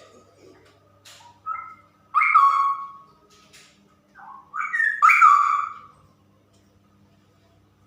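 Female straw-headed bulbul singing: two loud whistled phrases that fall in pitch, about two and five seconds in, with a few shorter notes before each.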